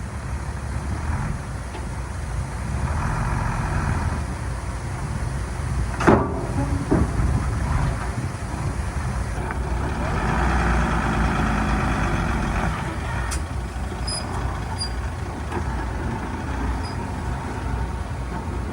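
Heavy machinery engine running steadily, the work of a dump truck and bulldozer filling a ditch, with a loud sharp sound about six seconds in and a smaller one about a second later.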